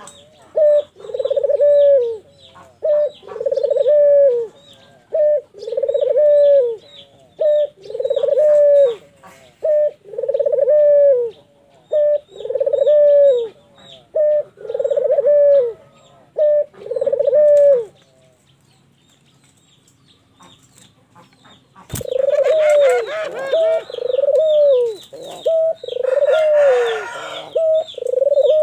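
Ringneck dove (puter) cooing: a steady run of rounded low coos, about one a second. The coos break off for a few seconds after the middle, a sharp click sounds, and then the cooing resumes.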